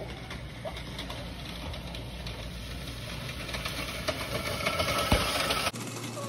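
Fiskars StaySharp Max reel mower's spinning blades whirring and clattering through grass. It grows louder as it comes close, with one sharp knock, and breaks off suddenly near the end.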